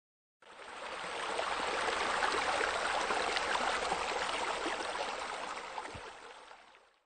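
Water running and trickling steadily. It fades in over the first second or so and fades out near the end.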